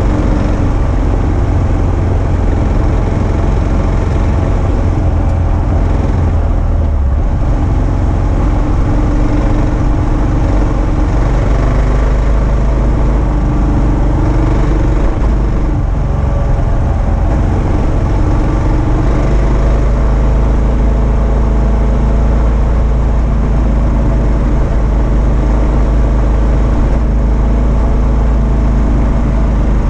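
Kawasaki KLR650's single-cylinder four-stroke engine running steadily under way, its note shifting a couple of times as the throttle changes.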